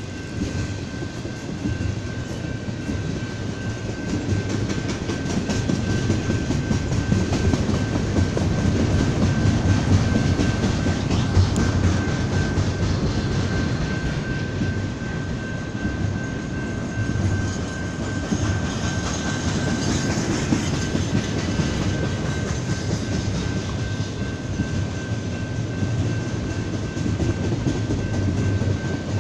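Union Pacific double-stack intermodal freight train rolling past, its container cars rumbling and clicking steadily over the rails. A thin, steady high whine rides over the rumble the whole way through.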